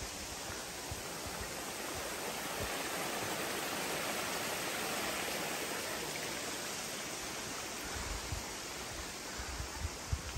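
Steady rushing noise, swelling a couple of seconds in and easing off again, with a few soft low thumps near the end.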